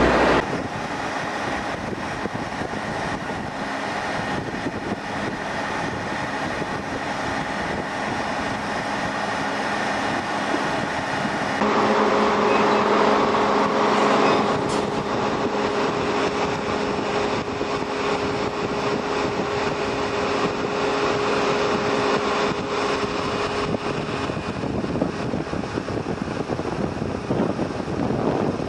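Steady mechanical noise of heavy machinery running. About twelve seconds in, a louder steady hum joins it and fades again after about twenty-four seconds.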